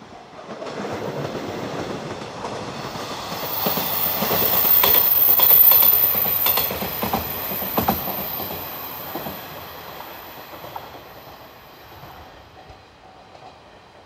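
A diesel train passing: it grows louder to a peak about halfway, then fades away. Near the loudest part the wheels click over the rail joints, and a thin high-pitched whine runs through most of the pass.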